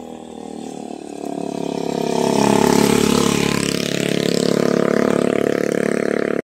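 A motor vehicle's engine running at a steady speed, growing louder over the first two or three seconds and then holding level.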